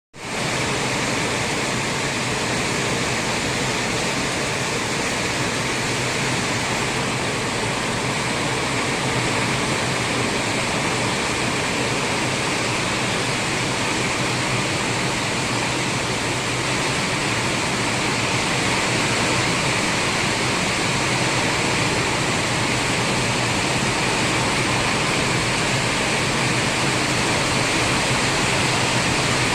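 Steady, even rush of water after very heavy rain, with no distinct drops or splashes standing out.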